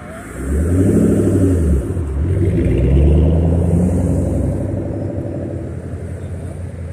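A car engine revving hard as the car pulls away. It climbs in pitch, drops briefly just before two seconds in, climbs again to its loudest about three seconds in, then fades as the car drives off.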